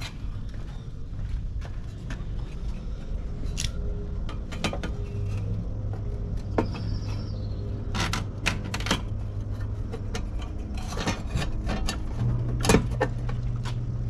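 Irregular sharp clicks and clacks of hands working the circuit breakers and cover of a residential breaker panel. A low steady hum comes in about a third of the way through and gets louder near the end.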